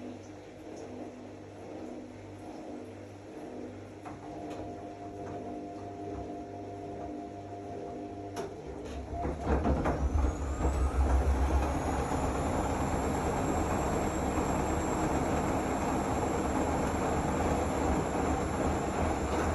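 Zanussi AquaCycle 500 FA 623 front-loading washing machine running quietly with a low hum, then about nine seconds in the motor speeds up into a spin: a rising whine that levels off into a steady high whine over a loud rumble of the spinning drum.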